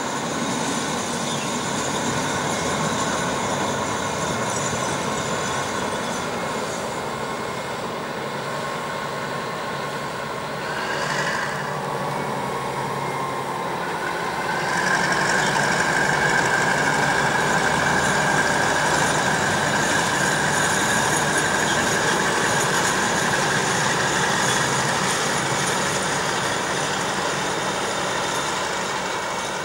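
Diesel locomotive of the State Railway of Thailand running light, without a train, as it passes. This is the helper locomotive that banks the express trains over the mountain. Its engine runs steadily throughout; about halfway in the sound grows louder and a steady high whine joins it for several seconds.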